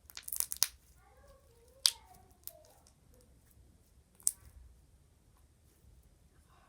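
A quick run of sharp clicks, then three single sharp clicks spread over the next few seconds, with a faint voice in the background.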